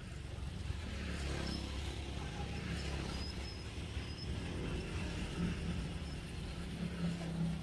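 Low, steady engine rumble of a motor vehicle, swelling about a second in and holding, with a few faint high chirps over it.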